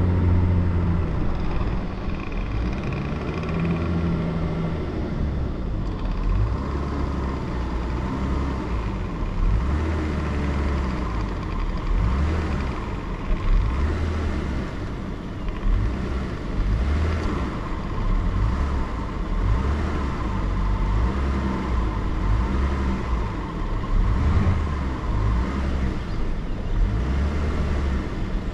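Car driving along an unsealed dirt road: the engine runs steadily, with a low rumble from the tyres and road.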